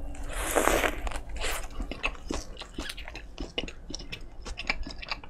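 A big bite into a soft sesame-bun Lotteria Military Burger with ham, cheese and shredded cabbage about half a second in, then close-miked chewing: many short clicks and squishes of the mouth working the food.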